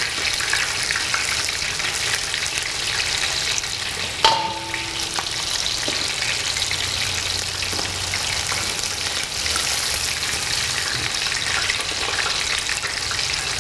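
Chicken leg quarters deep-frying in a pot of hot oil, a steady crackling sizzle, with a single metallic clink that rings briefly about four seconds in.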